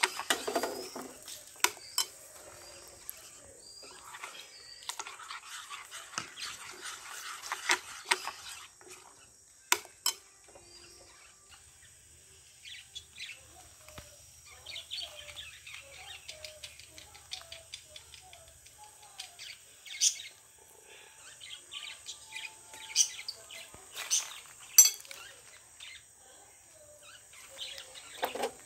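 Birds chirping and calling, many short chirps and small warbling notes, over a steady high-pitched hum. Scattered sharp clicks and knocks sound now and then, a few of them louder than the birdsong.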